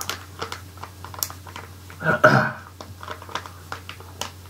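Thin plastic snack packet crinkling and clicking as it is handled in the hands, with a short burst of voice about two seconds in.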